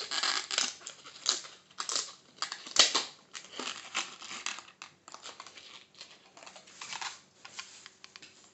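Latex modelling balloons (260s) being handled and tied off by hand: irregular short rubs and scrapes of rubber under the fingers, busiest in the first half and loudest about three seconds in.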